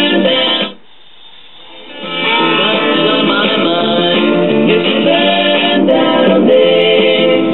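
Guitar-and-vocal music played from a record on a 1984 AudioPlus AV-15TX classroom record player, through its speaker, its original Astatic 89T cartridge's slightly worn LP stylus tracking the groove and its LM380N amp running with the gain-padding resistor removed, so it plays a lot louder. The music drops away for about a second near the start, then swells back up.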